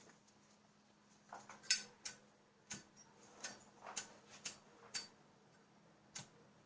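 A dozen or so light, sharp clicks and taps at an uneven pace, bunched in the middle, with one last click near the end.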